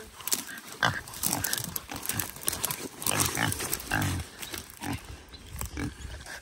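A feral hog squealing and grunting in short, repeated bursts as it is caught and held down by hand.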